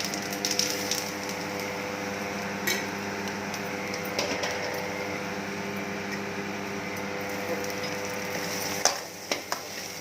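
Tempering of mustard seeds, dal and curry leaves crackling in hot oil over a steady motor hum, with occasional clinks of a utensil against the pan. The hum stops about nine seconds in, leaving a few sharp clinks.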